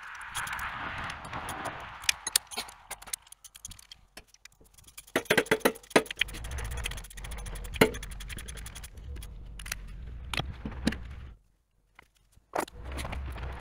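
Wrenches clinking and scraping against bolts and metal brackets as bolts are tightened in a backhoe's engine bay, with many sharp irregular clinks. A low rumble sits underneath for several seconds in the middle.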